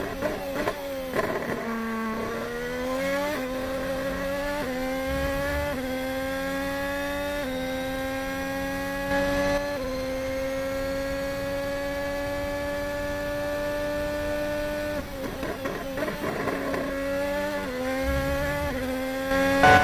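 Formula 1 car engine running at high revs, its note climbing slowly in small steps and then held steady. About fifteen seconds in it turns choppy and drops lower as the car slows, then climbs again near the end.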